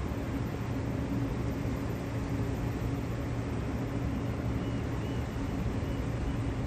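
Distant single-engine floatplane running steadily as it moves across the harbour on its floats, a constant engine drone over a low rumble. A few faint high chirps come about two-thirds of the way through.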